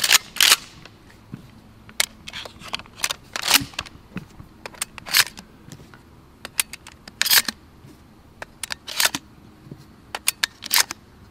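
Shotgun shells being pushed one at a time into the tube magazine of a Mossberg 590 A1 pump shotgun: a series of sharp clicks every second or two as each shell snaps in, with lighter ticks and rattles of shells being handled between.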